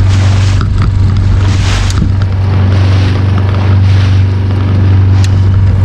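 A fishing boat's motor running steadily at trolling speed, a low even hum. Gusts of wind hit the microphone, and there is a sharp click about five seconds in.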